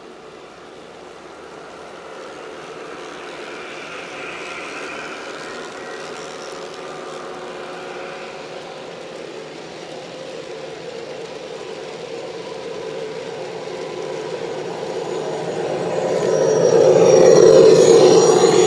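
G-scale model freight trains running on outdoor track: loaded coal hopper cars rolling steadily past. In the last few seconds the Union Pacific 'Big Blow' gas-turbine locomotive model passes close, and its sound swells to the loudest point, with a steady high whine over the rumble.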